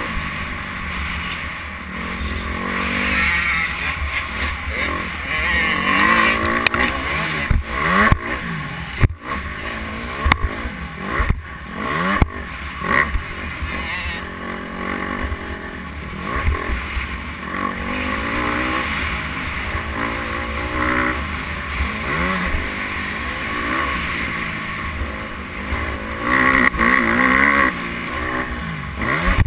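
Motocross bike engine, heard from the rider's helmet, revving up and falling off over and over as the bike is ridden hard through the gears, with wind noise on the microphone. A few sharp knocks come between about seven and thirteen seconds in.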